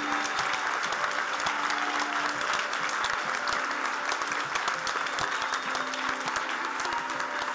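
Audience applauding steadily, many hands clapping at once, with soft background music tones beneath.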